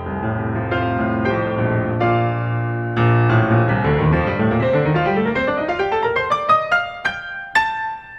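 Tango piano playing over held low bass notes, then a long ascending run that climbs note by note into the high treble, thinning out near the end.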